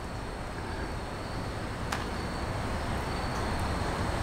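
Steady low hum and hiss of workshop background noise, with one faint click about two seconds in.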